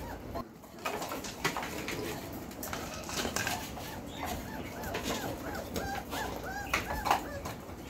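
A litter of four-week-old Belgian Malinois puppies squeaking and whining at play, in many short rising-and-falling calls, with scattered clicks.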